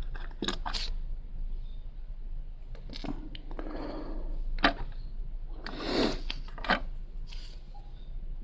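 Lego pieces being handled: scattered sharp plastic clicks with short stretches of rustling as pieces are sorted and picked through.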